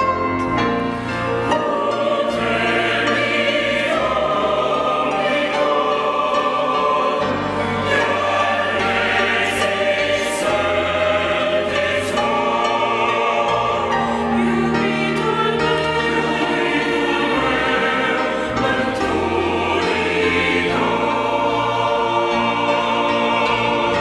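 Church choir singing a Romanian Christmas hymn, with sustained chords that change every second or two.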